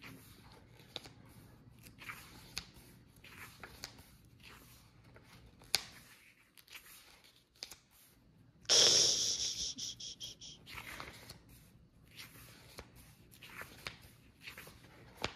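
Pages of a hardcover book being turned by hand: soft paper flicks and rustles, with a louder rustle lasting about a second and a half about nine seconds in.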